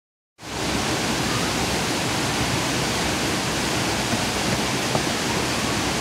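Waterfall pouring into a plunge pool: a steady, full rush of falling water.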